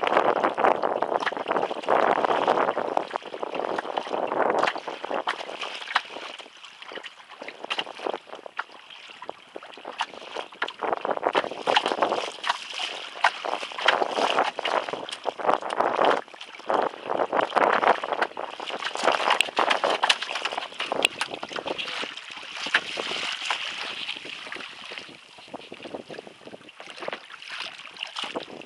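Water sloshing and slapping against a plastic kayak hull in choppy water, in uneven surges, with wind buffeting the microphone and scattered small splashes.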